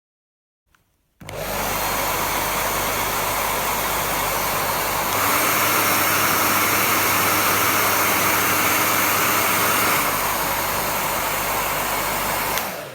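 GHD Air hair dryer's 2,100-watt AC motor blowing after a switch click, with a steady rush of air over a low hum. About four seconds in it steps up to a louder setting for about five seconds, then drops back. Near the end it is switched off and the blowing winds down.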